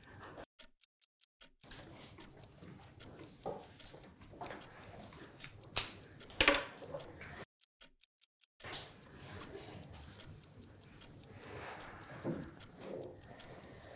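Quick, even ticking of a quiz answer timer, a clock ticking while the players race to write their answers. It drops out to dead silence twice for about a second, and a faint voice is heard briefly now and then.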